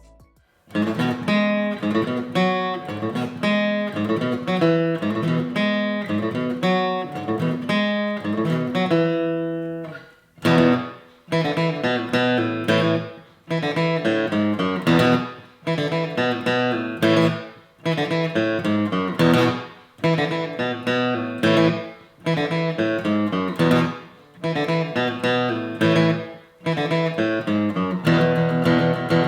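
Background music on guitar, plucked notes with a steady rhythm, briefly dropping out about ten seconds in.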